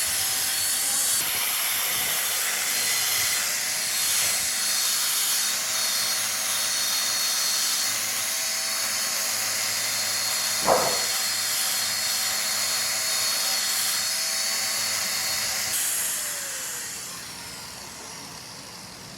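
Workshop power tool running with a steady hiss and faint steady tones, with one brief sharp knock about halfway through. The sound fades out over the last few seconds.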